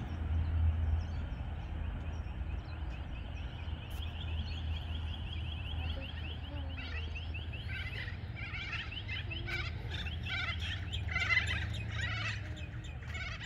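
Birds calling: a fast run of short, evenly repeated chirps from about four seconds in, then a louder, busier patch of chirping, over a steady low hum.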